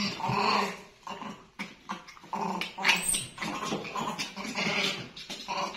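Young monkey crying out in a string of short whimpering squeals while another monkey wrestles it down, with one sharp high rising shriek about three seconds in: distress cries of a monkey being bullied.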